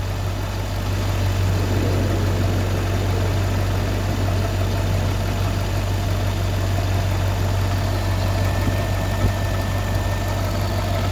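Volvo XC90's 4.4-litre V8 idling steadily, with the knock it is being checked for barely audible, as the owner hears it.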